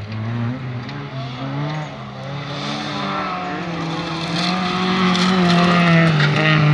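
Race car engine revving hard on a dirt track as the car comes out of a bend and accelerates toward the listener, its pitch rising and falling with the revs and growing louder in the second half.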